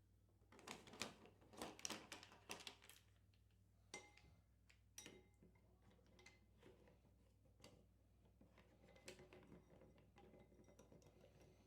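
Faint clicking and rattling of small plastic parts being handled. There is a quick flurry of clicks in the first few seconds, then a few scattered single clicks.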